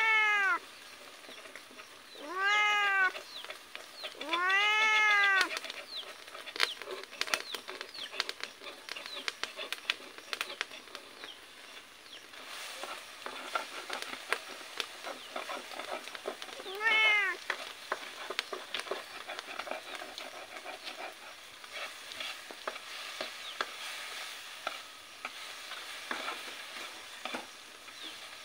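A cat meowing four times, each call rising and falling in pitch: once at the start, twice more within the first six seconds, and once more about 17 seconds in. Between the calls come many small crackles and sizzling from a wok frying over a small wood fire, with the scrape of stirring.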